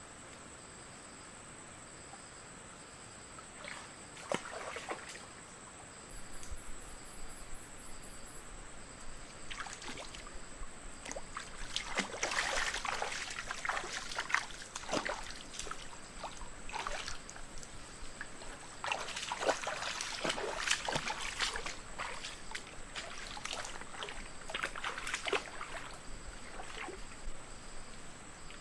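Water splashing and trickling in irregular spells that start a few seconds in and grow busier, over a steady high insect drone and a cricket chirping in even pulses.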